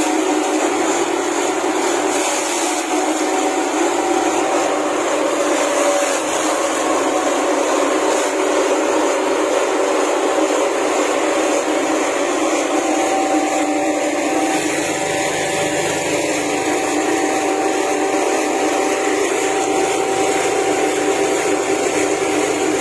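Grass-and-twig chopper machine powered by a 6.5 HP Yasuka petrol engine, running steadily at a constant speed.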